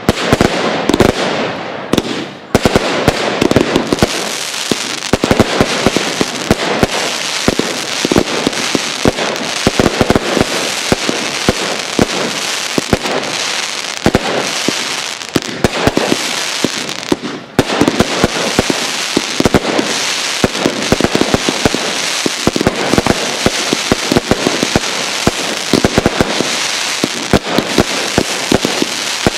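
Professional fireworks display: aerial shells bursting in a rapid, continuous string of bangs, with a brief lull a little past halfway.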